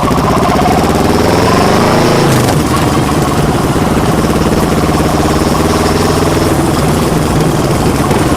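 Kawasaki Vulcan S 650's parallel-twin engine through a Delkevic full exhaust system, recorded right behind the muffler: the engine pitch rises for about two seconds, drops at a gear change, then holds fairly steady and climbs gently again.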